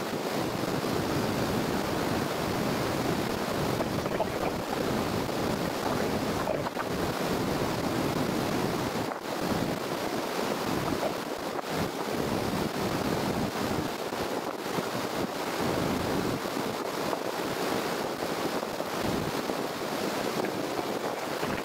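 River water rushing over rapids, a steady churning roar of whitewater.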